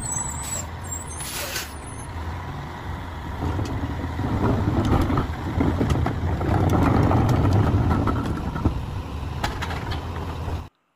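Garbage truck's diesel engine running, louder through the middle as the rear cart lifter tips a wheeled bin into the hopper, with a short air-brake hiss about a second and a half in and a few light clanks.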